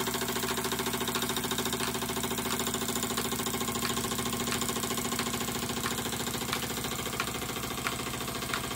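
Retrol SE-02 model horizontal steam engine running steadily under load, driving an OKMO P71 mini water pump: a rapid, even chuffing beat. From about three seconds in, sharp ticks join it roughly every two-thirds of a second.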